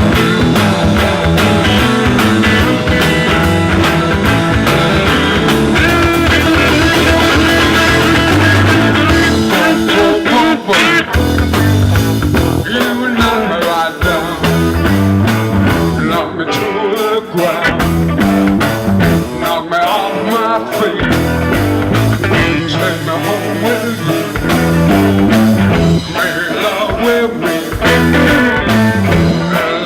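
Live rock band playing an instrumental passage: electric guitar, bass guitar and drums.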